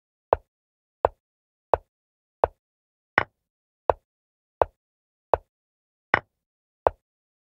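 Chess move sound effects from an animated board: a short, sharp click about every 0.7 s, one for each move played. Two of them, a few seconds in and again about two-thirds of the way through, are brighter capture sounds, for the bishop taking on b4 and the pawn taking on d4.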